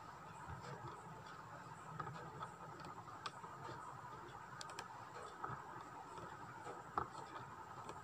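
Aari hook needle pricking in and out of the cloth while stitching zari thread: faint, irregular ticks and taps, with one sharper click about seven seconds in, over a steady faint hum.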